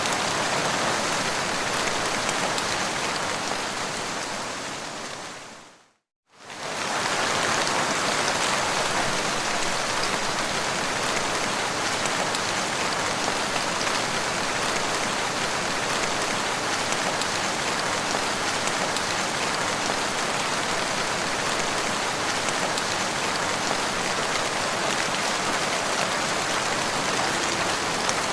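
Steady rain falling. About six seconds in, the rain fades down to a moment of silence, then quickly comes back at full level.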